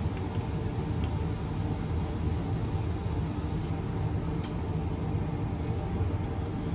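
Steady whir and hum of a running kitchen appliance fan, with a few faint light clicks of stainless steel tongs.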